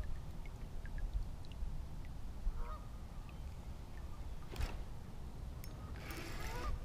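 Faint honking calls of waterfowl a few times, over a low wind rumble on the microphone, with one short knock about halfway through.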